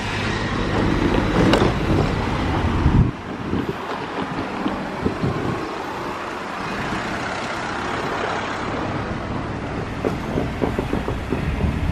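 A motor vehicle running close by, a heavy low rumble that drops off suddenly about three seconds in, then lighter, steady vehicle noise.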